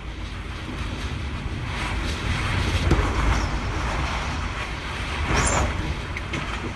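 Typhoon wind gusting and buffeting the microphone, a rushing rumble that swells about a second in and peaks twice, near the middle and again near the end.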